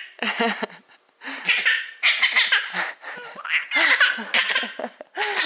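A baby laughing in a run of short bursts with brief gaps between them.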